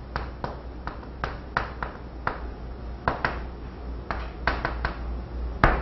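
Chalk writing on a chalkboard: a quick, irregular run of taps and short scrapes as characters are stroked out, with a sharper knock near the end. A low steady hum runs underneath.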